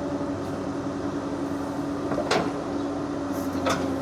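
Excavator's diesel engine running steadily at a constant pitch, with a few short sharp knocks a little over two seconds in and again near the end.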